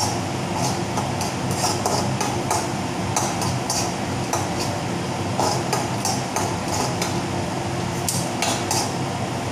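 Metal spoon scraping and clinking against a kadhai while stirring rice roasting in ghee, in short irregular strokes about two a second, over a steady low hum.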